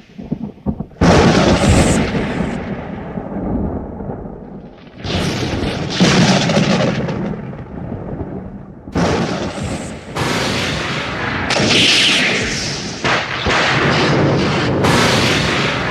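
Lightning-strike sound effects: about seven sharp thunder cracks, each fading off in a rumble, coming every one to four seconds.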